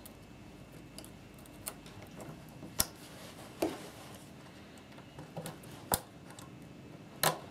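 Circlip pliers working a steel circlip onto the gear shaft of an old Makita 4-inch belt sander's gearbox: a string of small sharp metal clicks and ticks, the sharpest about three seconds in, about six seconds in and near the end.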